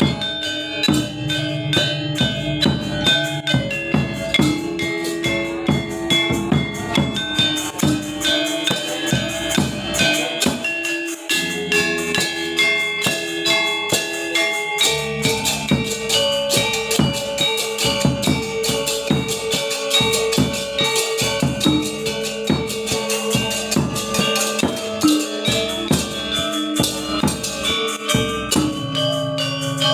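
Balinese gamelan gong ensemble practising: bronze metallophones struck in fast, dense patterns over held low gong tones, with drums beating along.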